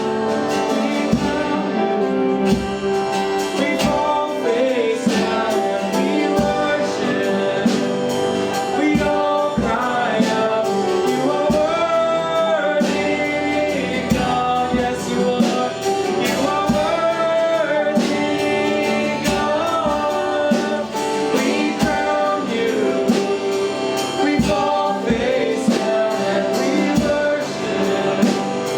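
Worship music: a group singing a hymn or praise song with instrumental accompaniment and a steady beat.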